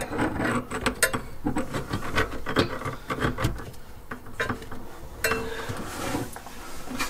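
Hands fitting a sink's pop-up drain pivot rod back into place under the basin: scattered clicks, knocks and rubbing of the rod and its fittings.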